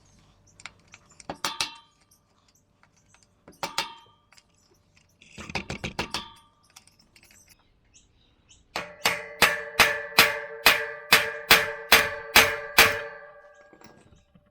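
Hammer striking a screwdriver used as a chisel in the stripped hex socket of a mountain bike fork's front axle bolt, chipping out metal. A few separate metallic strikes come first, then a quick run of about ten ringing blows near the end.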